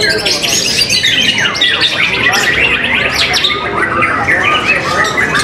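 White-rumped shamas (murai batu) in full song, several birds at once: loud, overlapping whistles, rapid trills and rising and falling phrases with no pause.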